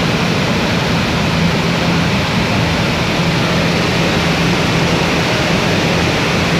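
Floodwater pouring out under a raised dam spillway shutter and crashing down the spillway, a loud, steady rushing noise with a steady low hum underneath.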